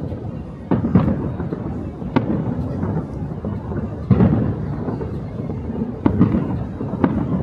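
Aerial fireworks bursting: about six sharp bangs over several seconds, each trailed by a deep booming rumble.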